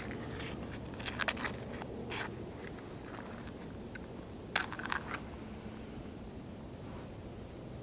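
Short bursts of crinkling and crackling from a small wrapper or packet being handled and torn open by hand, in clusters about a second in, at two seconds, and again around four and a half to five seconds.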